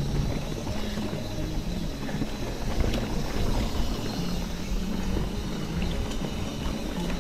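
Mountain bike rolling along a dirt trail: steady low rumble of tyres and wind on the microphone, with a few faint rattles and clicks from the bike.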